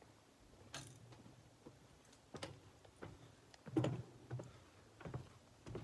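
Footsteps of hiking boots and taps of a trekking pole on a boardwalk deck: a handful of irregular light knocks and clicks, the loudest a little past the middle.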